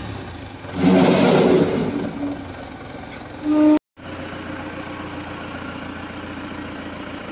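Forklift engine running while it carries a load. It gets louder from about one second in to two seconds, with a short pitched tone just before it cuts out, then settles to a steady hum.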